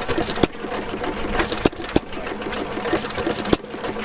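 Antique stationary gas engines running with a fast mechanical clatter and a steady hum, broken three times by a sharp pop at uneven intervals.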